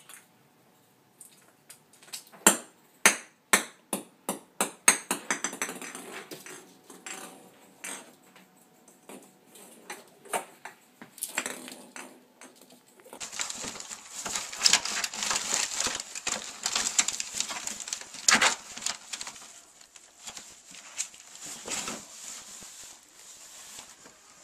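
A Christmas tree bauble dropping and bouncing on a wooden floor, a string of clicks that come faster and fainter as it settles, followed by scattered knocks as it is pushed along. Later, a long stretch of rustling and scuffing.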